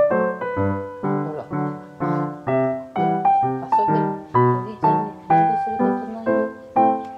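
Background piano music: an even run of struck, fading notes, about two a second.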